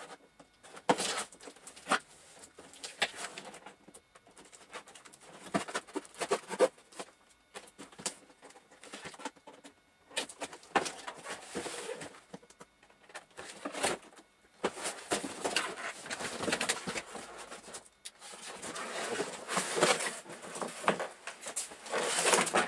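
Cardboard box and plastic packaging being handled: rustling, scraping and tearing in irregular bursts with scattered knocks, heaviest in the last few seconds as a scooter is pulled out of its wrapping.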